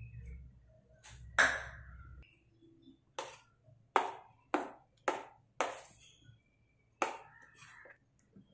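Steel spoon clinking against a stainless steel bowl while stirring thick beetroot and curd pachadi: about eight sharp, ringing clinks at uneven intervals, the loudest about a second and a half in.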